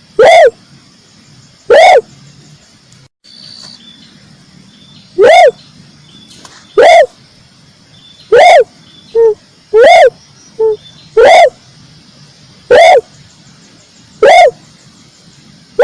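Red turtle dove calling: loud, short single coos repeated about every one and a half seconds, with a few shorter, lower notes slipped in between near the middle. Played as a bird-lure recording, with a brief break about three seconds in.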